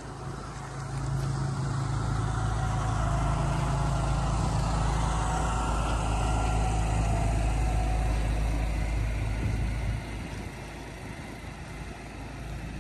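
Boat engine running with a steady low drone, louder from about a second in until about ten seconds in, over the rush and splash of water along the hull.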